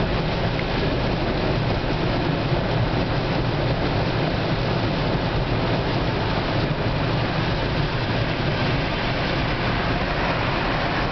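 Steady road noise heard inside a car at highway speed on a rain-soaked road: an even hiss of tyres and rain over a low drone.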